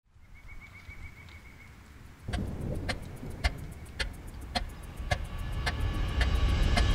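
Low rumble of heavy forestry machinery that comes in about two seconds in, with sharp ticks at an even pace of nearly two a second over it. Before the rumble, a faint quick run of high chirps.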